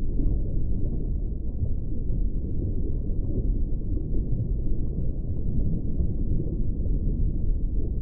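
Underwater ambience: a steady low rumble of water, with nothing higher in pitch.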